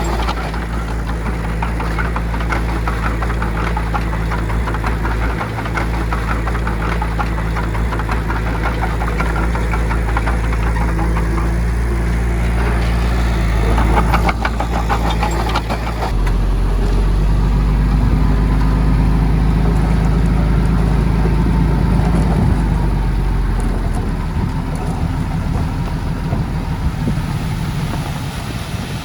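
Heavy diesel engine of earthmoving machinery running with a fast mechanical rattle. About halfway through it grows louder and deeper for several seconds, then eases off near the end.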